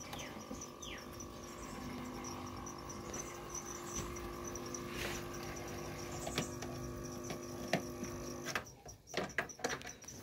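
A steady electrical hum with a few fixed pitches starts as a wall switch is flipped and cuts off suddenly after about eight and a half seconds. A faint, high, regular ticking chirp goes on behind it.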